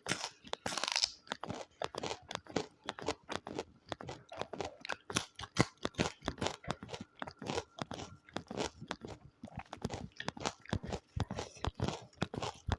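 Close-miked chewing of crunchy water spinach (kangkung) roots: rapid, crisp crunches, several a second.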